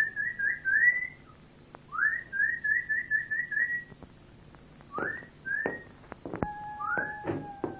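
Whistling: a rising whistled note running into a quick trill of short notes, twice, then two short upward whistles and a long held whistle near the end.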